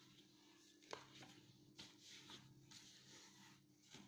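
Near silence: faint room tone with a low steady hum and a few soft clicks and rustles.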